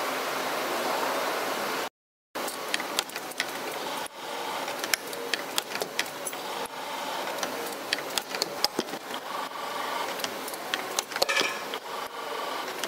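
Factory machinery running: a steady mechanical noise that cuts off abruptly about two seconds in, then a different machine noise with frequent sharp clicks and knocks.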